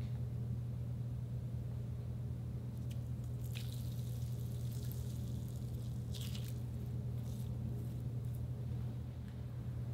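Giant water-gel bead (Orbeez) squeezed and crushed in a bare hand: wet squishing crunches, the clearest about three and a half and six seconds in, with a steady low hum underneath.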